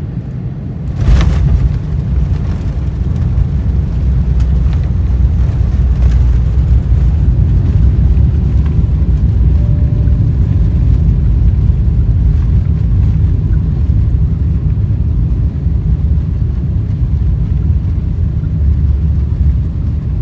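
Boeing 747-8 touching down about a second in with a sudden jolt, followed by a loud, steady low rumble through the cabin as it rolls out along the runway with its spoilers raised.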